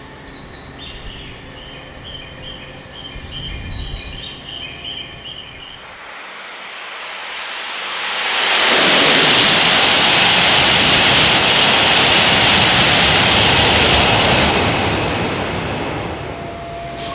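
Tohoku Shinkansen E6 and E5 coupled train passing straight through a station at high speed without stopping. The loud rush of wheels and air swells about eight seconds in, holds for some six seconds and then fades away.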